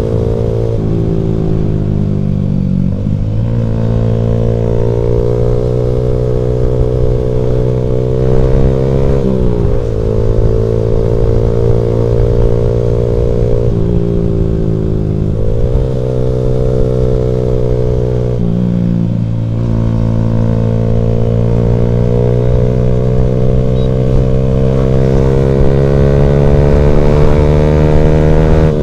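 Motorcycle engine running under way, loud and steady. Its pitch dips and climbs back about four times as the throttle is eased and opened again.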